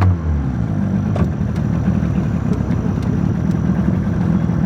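Small boat's motor running steadily, an even, low drone.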